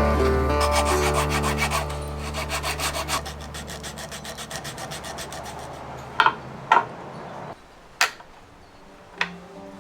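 Wood being worked by hand, a fast rasping scrape of a tool rubbing over the walnut, over a steady low hum that cuts off about three-quarters of the way through. A few sharp knocks follow near the end.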